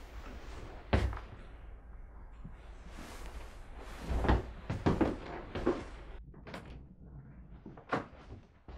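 Interior door and its lever handle being worked: a sharp knock about a second in, then a cluster of clicks and knocks around the middle and another near the end.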